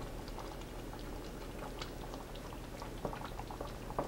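Chicken cacciatore in tomato sauce simmering in a pot, faint soft popping and bubbling, with a few light clicks near the end.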